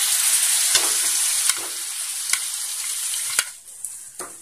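Hot masala in ghee and coconut oil sizzling loudly as cooked mutton and its cooking water are poured into the pan, with a few sharp clicks of the spatula against the pan. The sizzle dies down about three and a half seconds in.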